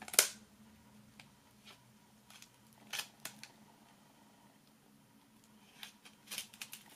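Plastic DVD case and peeled-off shrink-wrap foil being handled: one sharp click just after the start, then scattered faint clicks and crinkles, more of them near the end.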